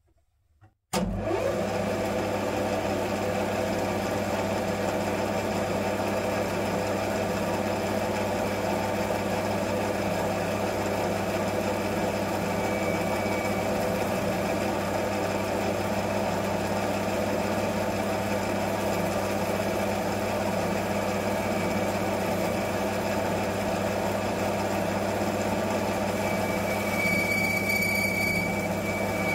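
Metal lathe switched on about a second in and running steadily, its motor humming and the chuck spinning while a tool cuts a stainless steel sleeve to its final length. A high, steady whine joins near the end.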